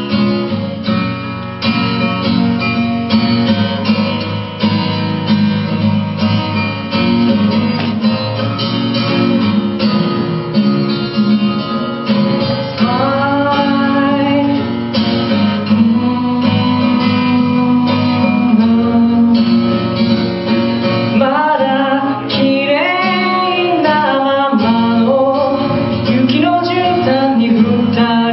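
Acoustic guitar strummed steadily in chords, with a singing voice coming in over it about halfway through, holding long, bending notes.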